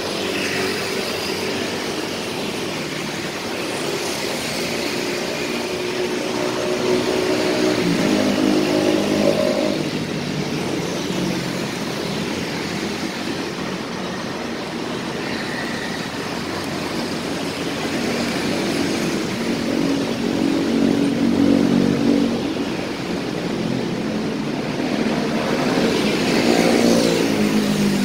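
Night city-street traffic: cars and motorcycles passing in a steady stream, engine hum and tyre noise rising and falling as each vehicle goes by. Louder pass-bys come about a third of the way in, about two-thirds in, and near the end.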